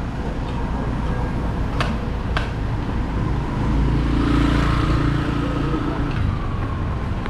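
Street traffic rumble, with a motor vehicle passing and growing louder about halfway through, then fading. Two sharp clicks come shortly before the passing vehicle.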